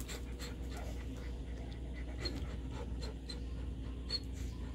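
Golden retriever panting, a steady run of quick, short breaths, about two or three a second.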